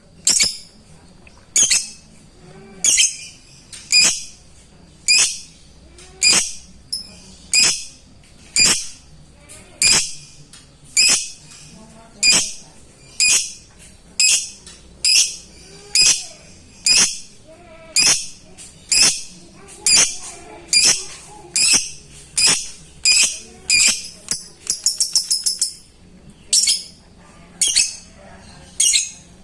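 A lovebird giving sharp, high single calls about once a second, its call to a rival lovebird. Near the end it breaks into a quick run of rapid ticks.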